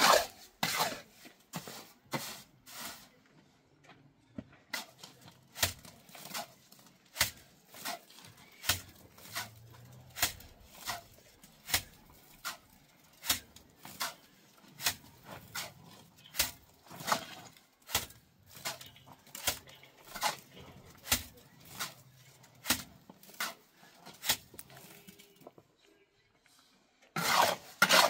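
Repeated sharp knocks, about two a second, with a brief pause about four seconds in and a longer one near the end.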